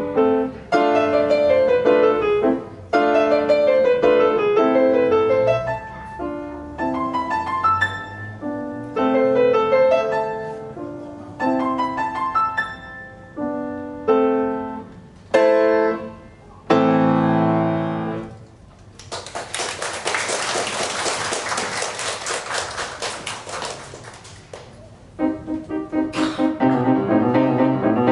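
Solo classical piece on a grand piano, played live in phrases that swell and fall, with short breaks between them.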